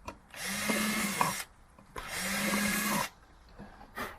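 Power drill running in two short bursts of about a second each, boring holes through an empty plastic laundry container.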